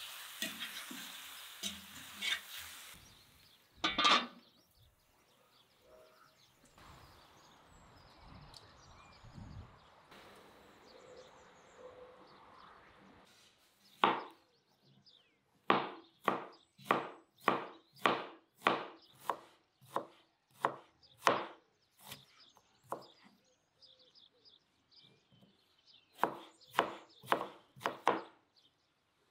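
Knife slicing an onion on a plastic cutting board: a run of sharp, evenly spaced chops, about two a second, with a pause of a few seconds before a final short run. At the start, faint sizzling of meat frying in a pan with a few stirring clicks.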